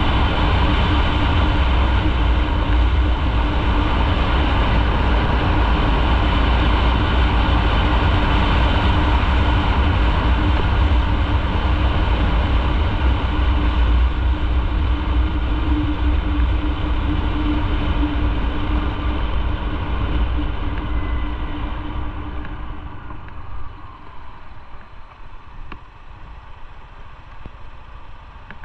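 Motorcycle running on the road: steady engine and road noise with a heavy low rumble. With about five seconds left the sound drops off sharply and stays much quieter.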